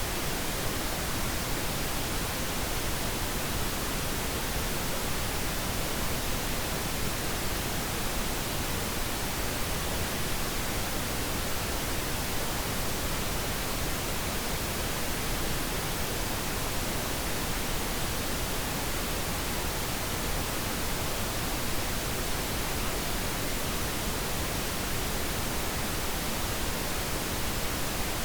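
Steady pink noise: an even, unbroken hiss, used as a sleep sound for babies.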